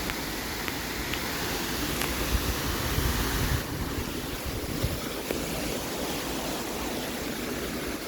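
Strong wind blowing in gusts, buffeting the microphone with a low rumble, easing slightly after about three and a half seconds.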